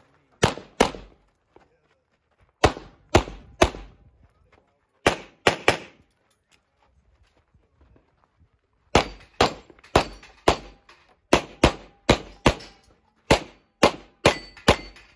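Handgun shots fired in quick strings of two to six, each a sharp, brief crack, about two dozen in all, with a pause of about three seconds near the middle.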